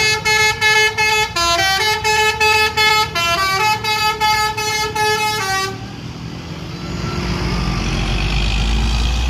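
A bus's multi-tone telolet horn plays a quick tune of short notes stepping between a few pitches, then cuts off about six seconds in. After it, the low rumble of a heavy vehicle passing swells, loudest near the end.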